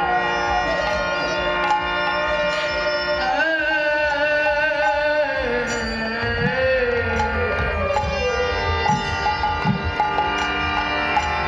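Bengali devotional kirtan music: sustained melody tones that glide in pitch, with occasional drum strokes underneath.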